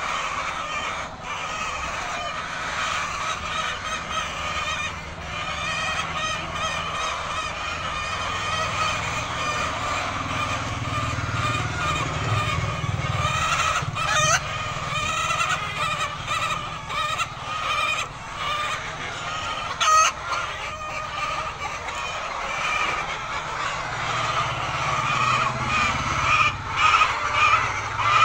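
A large flock of laying hens clucking and calling all at once in a dense, steady chatter, with a low hum underneath.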